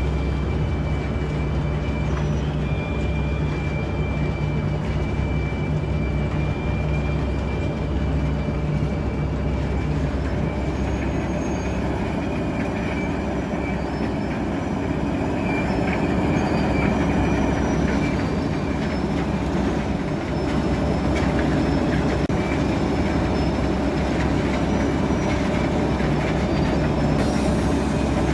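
Bucket-wheel excavator and its conveyors running: a steady, heavy mechanical rumble with a thin high whine that fades about ten seconds in.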